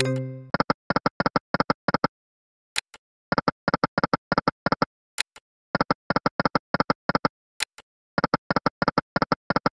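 Online slot machine game sound effects: runs of short electronic ticks, about six or seven a second, as the reels spin and stop. A single sharper click starts each new spin about every two and a half seconds. A win jingle fades out in the first half second.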